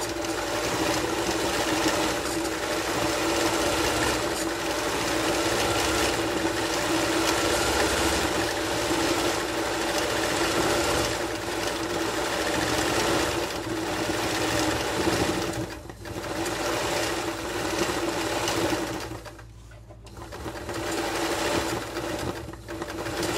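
Sewing machine running steadily, stitching free-hand machine embroidery on fabric in a hoop. It slows briefly about two-thirds of the way through, stops for about a second a little later, then runs again until near the end.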